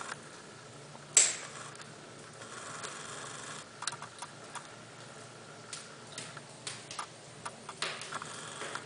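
A sharp knock about a second in, then a short scrape and scattered light clicks and taps.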